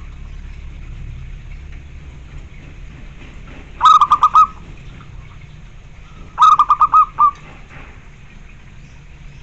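Zebra dove (perkutut) cooing twice: two short phrases of quick, clipped pulsed notes, the first about four seconds in and the second a couple of seconds later, ending on a separate final note.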